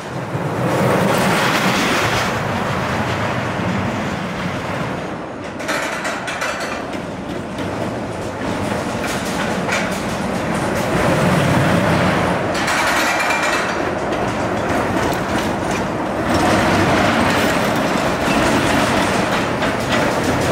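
E&F Miler Hi-Miler steel roller coaster train rumbling along its track. The noise rises sharply about half a second in as the train drops from the top, then swells and fades as it runs through the course.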